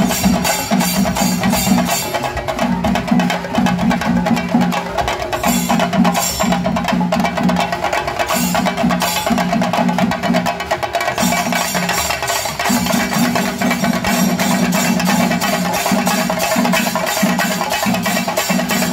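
Tamate frame drums beaten with sticks in a fast, unbroken rhythm of dense, sharp strokes.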